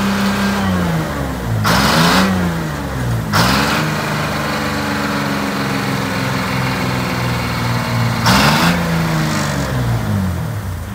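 Detroit Diesel 6V71 two-stroke V6 diesel revved up three times, each time with a rush of noise, its revs hanging high between blips. It then winds down and stops near the end. The revs fail to drop back when the throttle pedal is let up, which the mechanics put down to a throttle linkage that isn't returning, likely a missing return spring.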